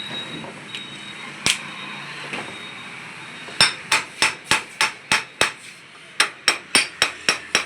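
Hammer blows on a car alternator being taken apart: one single knock, then a quick, even run of strikes at about three a second, with a short pause partway through.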